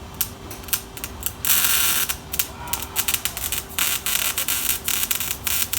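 Tools working on the exhaust of a BMW E60 M5 during a muffler delete: a run of sharp metallic clicks and knocks, with a short harsh burst of noise about one and a half seconds in.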